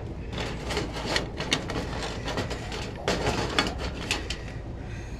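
Knocks, clicks and scrapes of the camera being handled and set down in a new spot, in two short bursts about two seconds apart.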